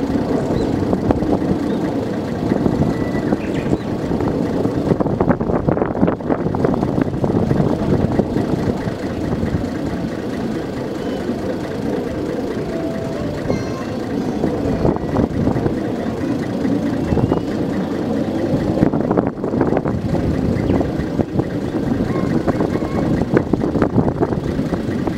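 Diesel engine of a Nanbu Jukan Railway KiHa 10 rail bus idling with the railcar standing still, a steady, rattly running sound.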